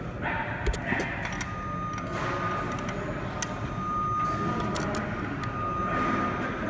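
Scattered light metallic clicks of a box-end wrench on the lock nut of a valve rocker adjusting screw on a CAT C7 diesel cylinder head, as the lock nut is loosened to set the exhaust valve lash. A thin steady whine runs behind from about a second and a half in until near the end.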